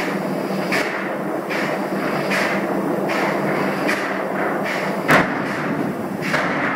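Loud, steady machinery drone that pulses regularly a little faster than once a second, with a single sharp knock about five seconds in.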